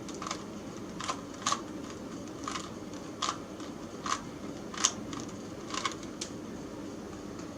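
A Rubik's Cube being twisted by hand: its plastic layers click sharply with each turn, about nine clicks at an uneven pace, over a steady low room hum.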